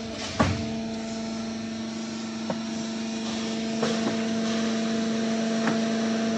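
QT4-18 concrete block making machine running with a steady hum from its hydraulic system while pallets of fresh paver blocks are pushed out. Several metallic knocks sound over the hum, the loudest about half a second in.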